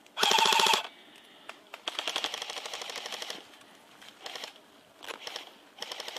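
Airsoft rifles firing full-auto bursts as rapid clicking rattles. There is a loud, close half-second burst near the start, a longer, quieter burst from about two to three seconds in, and short bursts near the end.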